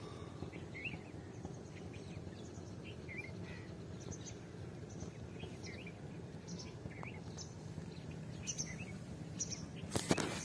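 Small birds chirping, many short high calls scattered over a steady low outdoor background noise, with a brief cluster of sharp knocks near the end.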